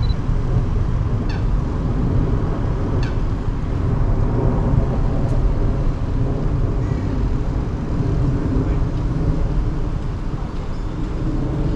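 Steady low outdoor rumble with a few short, falling bird calls in the first few seconds.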